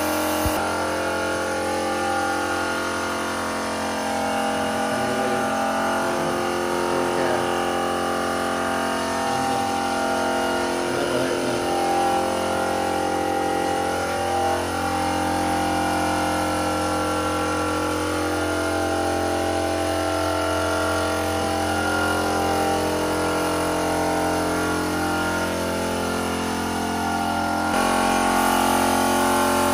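Air compressor running steadily to feed a paint spray gun, a humming, whining motor with a hiss of air over it; the sound changes abruptly near the end.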